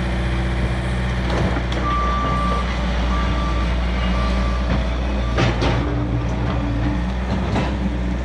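Bobcat S185 skid steer's diesel engine running as the machine reverses, its backup alarm beeping several times from about two seconds in.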